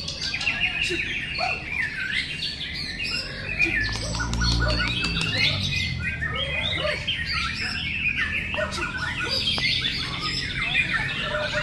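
Several caged white-rumped shamas (murai batu) singing at once in competition: loud, overlapping whistles and rapid varied phrases that run on without a break.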